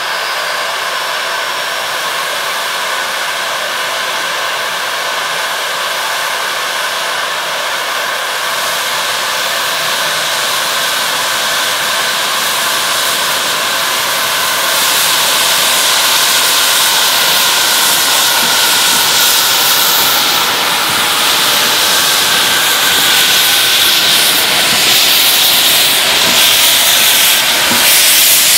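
A metre-gauge steam locomotive hissing steadily as it moves off slowly. About halfway through, steam venting from its cylinder drain cocks makes the hiss louder, and it stays loud as the engine draws past.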